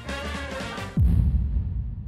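Edited-in background music, cut about a second in by a sudden deep boom sound effect with a falling pitch that slowly dies away.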